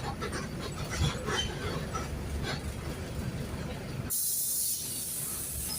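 Mercedes-Benz OF-1519 bus's diesel engine running, heard from inside the cabin as a steady low rumble. About four seconds in, a sudden sharp hiss cuts in briefly, and a lower rumble carries on after it.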